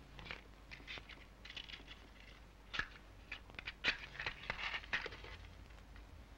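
Paper rustling and crinkling in short, faint spurts as something wrapped is handled, with a couple of sharp clicks near the middle.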